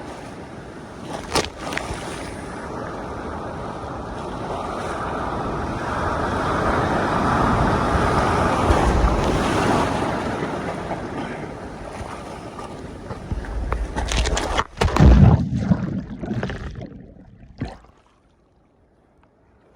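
Ocean surf breaking and rushing around the phone's waterproof case. The rush swells to a peak in the middle and eases. Near the end come sharp knocks and splashes, then the sound drops away suddenly to near silence.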